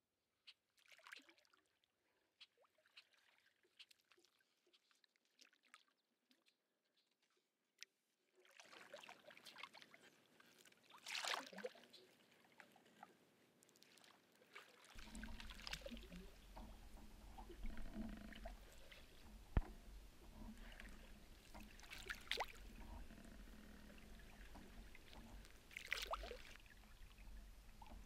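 Nearly silent for the first several seconds apart from a few faint ticks, then a wooden canoe paddle dipping and pulling through calm water, with swirls and drips at each stroke every few seconds. A low rumble runs under the strokes from about halfway through.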